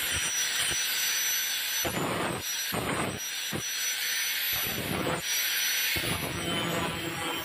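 Electric angle grinder running at full speed with a steady high whine, its disc grinding a steel strip cut from a worn ceramic-cutting blade in several short passes, the harsh grinding surging each time the disc bites.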